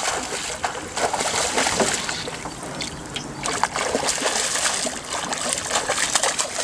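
Hooked trout thrashing at the surface beside a boat: a run of irregular splashes and water slapping.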